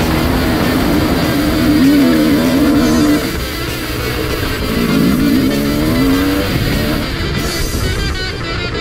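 Dirt bike engine revving up and down under load on a rocky climb, its pitch rising and falling over and over. Rock music with guitar plays over it.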